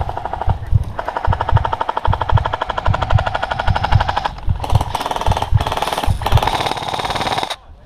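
Airsoft electric rifle firing on full auto: a rapid mechanical chatter over a steady motor whine, one long burst of about four seconds followed by several shorter bursts that stop abruptly.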